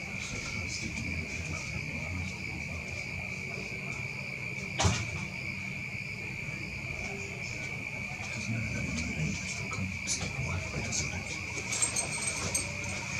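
Night insects, likely crickets, trilling in a steady continuous chorus on one high pitch, with one sharp click about five seconds in.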